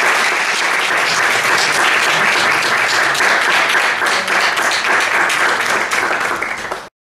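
Audience applauding: many hands clapping in a dense, steady patter, which cuts off suddenly near the end.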